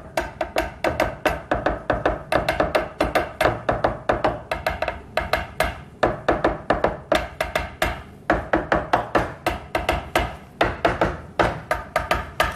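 A steel honing rod and a chef's knife beaten on a plastic cutting board as an improvised drum beat: a fast, uneven run of knocks and taps, several a second, with a ringing tone on the strokes.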